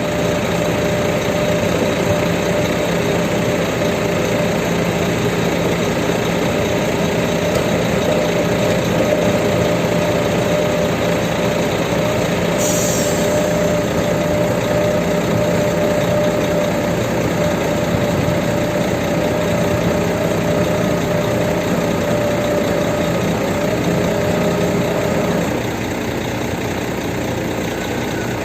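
Heavy diesel engine running steadily, with a small drop in level and a change in its note about 25 seconds in.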